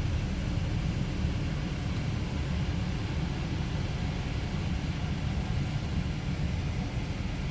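Steady low rumble of a 2002 Chrysler Sebring's HVAC blower fan on defrost together with its idling engine, while the climate control runs its reset and recalibration sequence.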